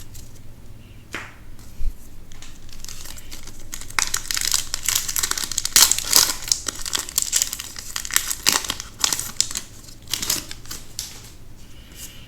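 Foil wrapper of a Magic: The Gathering set booster pack crinkling as it is torn open and handled, a dense crackle that builds after a couple of seconds and is loudest in the middle.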